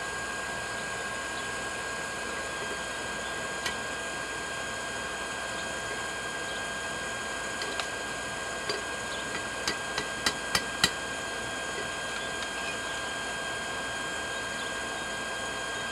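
Forge air blower running steadily with a faint whine. Over it come scattered sharp metallic clicks from steel tongs on a steel plate, with a quick run of five or six louder clinks about ten seconds in.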